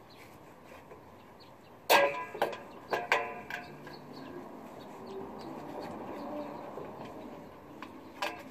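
A few short chicken clucks about two to three and a half seconds in, over faint scraping as a small screwdriver levers a brake shoe return spring into place.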